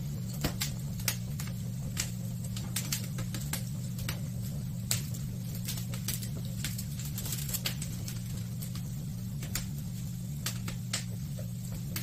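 Wood fire burning in a metal chiminea-style fire pit, crackling with irregular sharp pops over a steady low hum.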